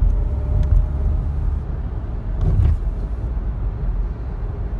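Car cabin noise while driving: a steady low rumble of road and engine, with a few faint clicks.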